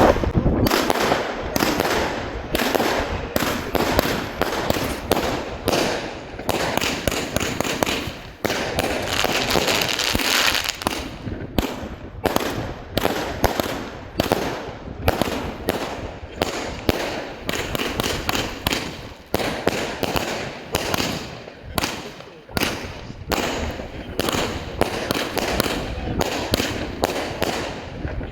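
A 47-shot consumer fireworks cake firing in fast salvos: a continuous run of loud shots and bursts, several a second, broken only by short pauses.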